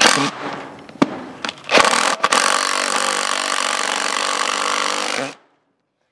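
Cordless impact driver hammering a screw into a wooden board: a short burst at the start, then a steady run of about three and a half seconds that stops abruptly.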